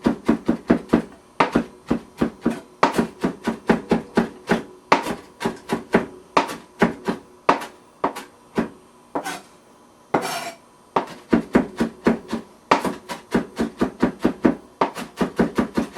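Knife chopping fresh parsley on a cutting board: a quick run of sharp knocks, about four a second, with brief pauses and one scrape about ten seconds in as the herbs are gathered.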